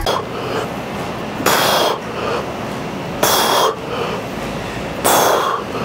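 A lifter breathing hard through reps of a T-bar row. There are three loud, sharp exhalations about two seconds apart, with quieter breaths in between.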